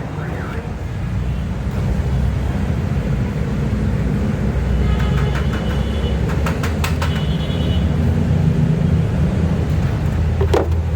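Steady low rumble of motor-vehicle traffic, with a few light clicks about halfway through and again near the end.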